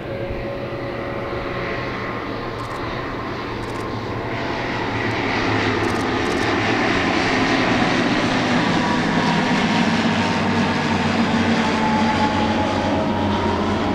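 Aircraft engine running during a flypast, growing louder from about four seconds in and staying loud, with its tones sliding slowly lower in pitch near the end as it passes.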